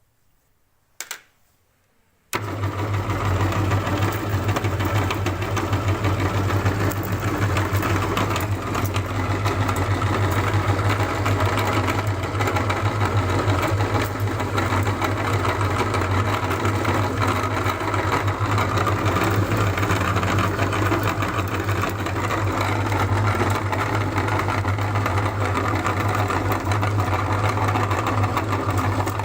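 An electric meat grinder switches on about two seconds in and runs steadily with a strong motor hum while crushing chocolate. A short click comes just before it starts.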